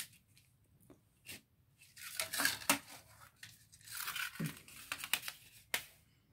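Plastic CD cases and discs being handled: a few sharp plastic clicks and two stretches of scraping, crinkling rustle, about two and four seconds in.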